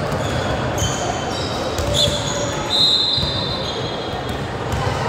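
Basketball game sounds on a hardwood court: a ball bouncing repeatedly, with several short, high squeaks of sneakers, the loudest about two to three seconds in.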